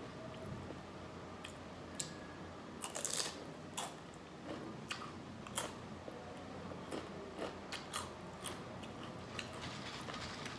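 A person biting and chewing a nacho tortilla chip topped with beef salsa, close to the microphone: irregular sharp crunches.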